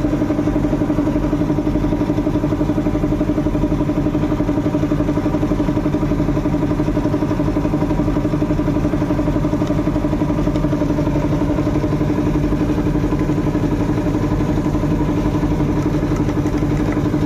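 A motor or engine running steadily at one speed, a continuous even hum.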